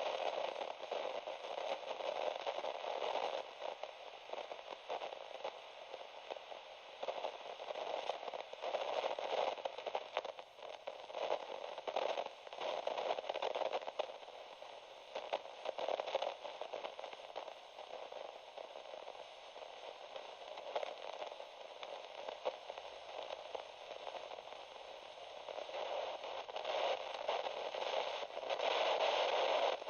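Radio static: a crackling hiss that swells and fades in loudness every second or two, getting louder near the end.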